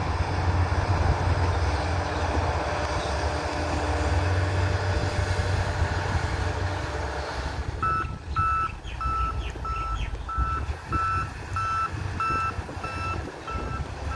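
A departing train's low rumble fading over the first half, then a vehicle's reversing alarm beeping steadily, about twice a second.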